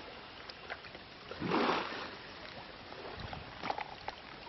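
River water sloshing and splashing, with one louder rush of splashing about a second and a half in and a few light knocks near the end.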